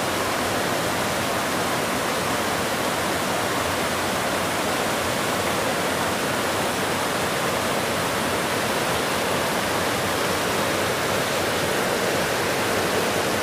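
Forest waterfall cascading over boulders: a loud, steady rush of whitewater.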